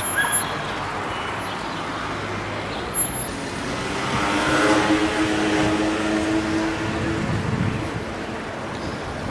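City street traffic noise heard while cycling, a steady wash of road noise. About four seconds in, a motor vehicle's engine hum swells and then fades over a few seconds. There is a single short click a little before that.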